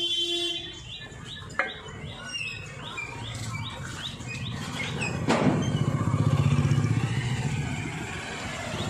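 Small birds chirping over and over, while an engine's low rumble builds, peaks about six to seven seconds in and fades again, as of a vehicle passing. A sharp click sounds about five seconds in.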